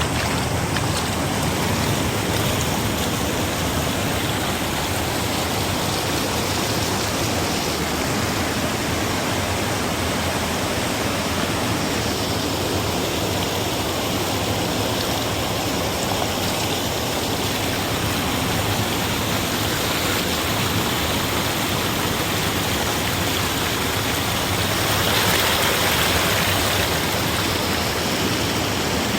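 Flowing water making a steady rushing sound, swelling slightly about twenty-five seconds in.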